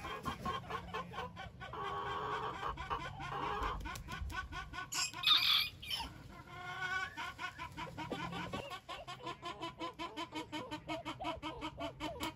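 Serama bantam chickens clucking and calling, with one louder, sharper call about five seconds in and a quick run of short, evenly spaced clucks in the second half.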